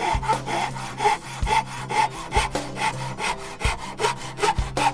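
Handsaw cutting into a red oak tenon, trimming it: steady back-and-forth rasping strokes through the hardwood, about two a second.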